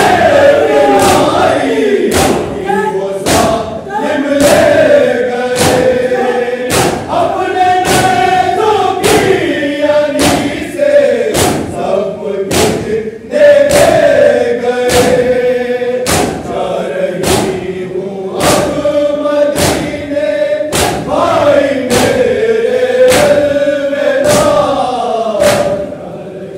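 Men chanting a Shia noha (lament) in chorus, a lead voice answered by the group, with rhythmic matam: palms slapping chests together in time, about three beats every two seconds.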